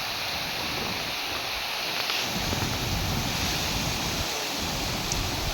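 Rain falling steadily, an even hiss, with a low rumble building from about two seconds in.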